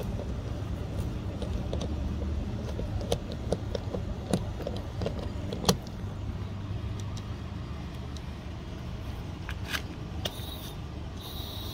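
Light metallic clicks and rattles of a propane hose's threaded brass fitting being unscrewed from a generator's fuel inlet and handled, over a steady low rumble. Near the end come two short hisses.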